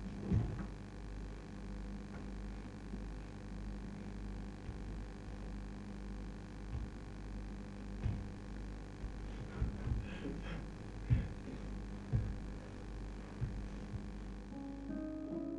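Steady low electrical hum with a few soft thuds from dancers' feet and bodies on the stage. Plucked guitar notes begin near the end.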